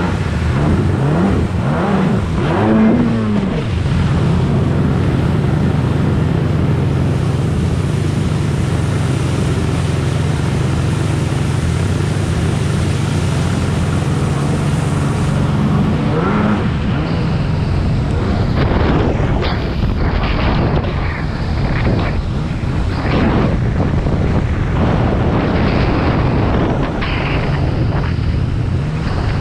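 Two-stroke stand-up jet ski running hard, a steady engine drone whose revs rise and fall a few times, over the rush of spray and wind. In the second half the hull slaps over chop in quick repeated hits.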